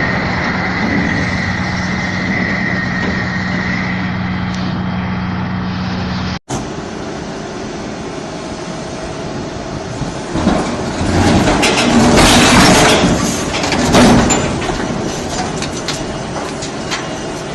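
A heavy vehicle's engine running at a steady pitch; after a sudden cut about six seconds in, a louder rumble with clattering and knocking that swells twice near the middle and then eases off.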